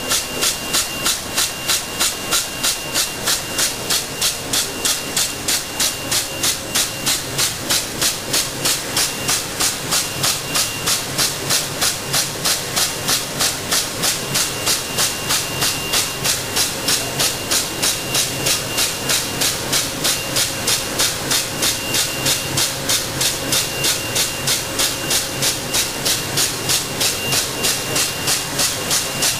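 CT-9914 left-handed wicketer bag-making machine running, cycling in a steady rhythm of about three sharp, hissing beats a second, with a faint high whine underneath.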